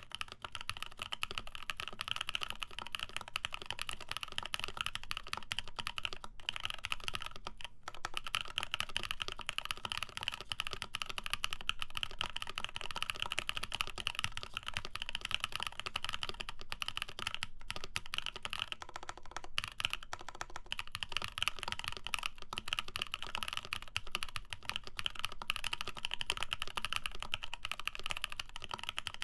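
Fast, continuous typing on a custom mechanical keyboard with lubed Prevail Epsilon tactile switches, GMK keycaps and an FR4 plate: a dense stream of key strikes and bottom-outs, with brief breaks about six and eight seconds in.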